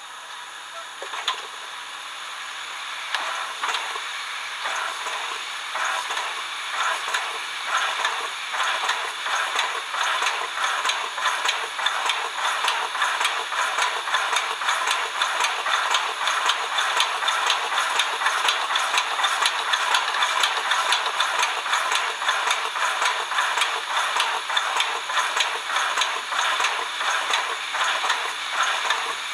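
Steam-locomotive operating sound from the DCC sound decoder in a Fleischmann model P 10 steam locomotive: hissing steam with rhythmic chuffs that grow faster and louder.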